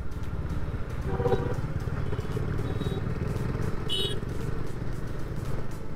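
Bajaj Dominar 400's single-cylinder engine running steadily while riding, a low pulsing exhaust note mixed with wind and road noise. A brief high-pitched tone sounds about four seconds in.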